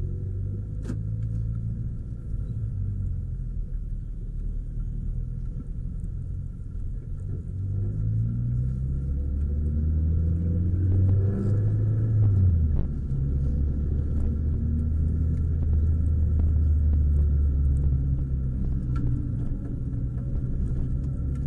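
Renault Clio 172's 2.0-litre four-cylinder engine heard from inside the cabin under acceleration, its pitch climbing in steps. It drops sharply at a gear change a little past halfway, then runs at a steady pitch.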